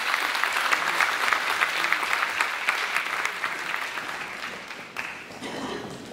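Audience applauding, a dense patter of many hands clapping that thins out and dies away about five seconds in.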